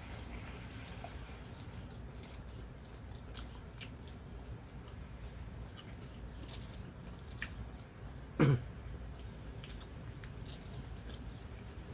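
Eating sounds at a meal table: chewing and small, scattered clicks and smacks from mouths and utensils, with one short dull thump about eight and a half seconds in.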